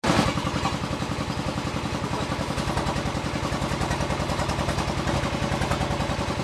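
Bajaj Pulsar 150's single-cylinder four-stroke engine idling steadily, with an even beat of about ten pulses a second.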